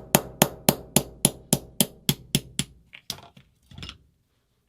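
Hammer tapping a pin punch in quick, even strikes, about four a second, to drive a pin out of an Angel LCD paintball marker, each strike with a short metallic ring. The strikes grow weaker and stop about two and a half seconds in, followed by a few softer knocks.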